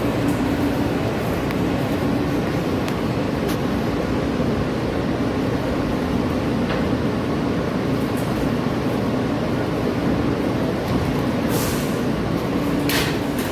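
Steady rumble and hum of a New York City subway car running, heard from inside the car, with two short hisses near the end.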